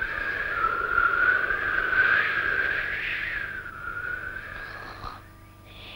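Soundtrack wind effect for the animated film: a whistling, wavering high tone over a breathy hiss as a gust blows, fading away about five seconds in.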